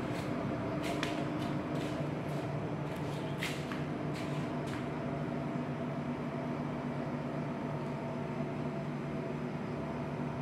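Electric water pump running with a steady hum. Several short clicks and rustles come in the first half.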